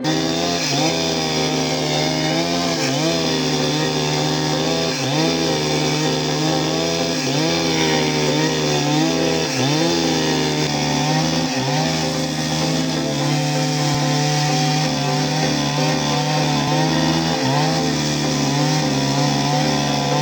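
Bonhoeffer BON-P-CS65 65 cc two-stroke chainsaw running at high revs and cutting wood, its engine note dipping briefly under load again and again.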